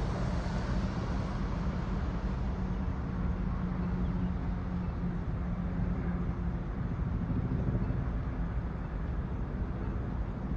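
Steady low rumble of a car driving, road and engine noise without a break.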